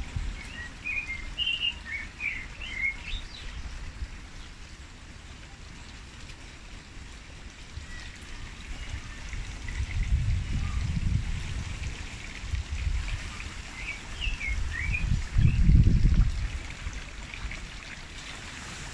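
Wind gusting against the microphone as a low rumble, loudest in two gusts around the middle and about three-quarters through, with small birds chirping in quick bursts near the start and again near the end.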